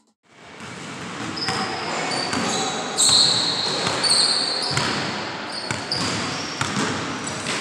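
A basketball dribbled on a hardwood gym floor, its bounces ringing in the large hall, with short high-pitched squeaks of sneakers on the court.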